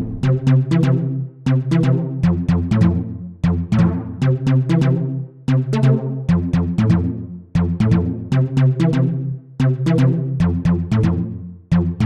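Electronic music: a synthesizer and drum-machine loop with sharp repeated hits and a bass line, the pattern repeating about every two seconds.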